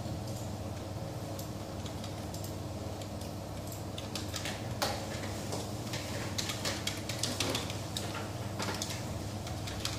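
Scattered keyboard typing clicks over a steady room hum, with the clicks coming thickest from about halfway through.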